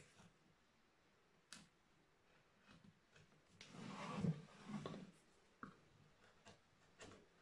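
Faint, sparse clicks and scrapes of a carving knife cutting into a wooden relief panel, with one longer, louder scraping rustle about four seconds in.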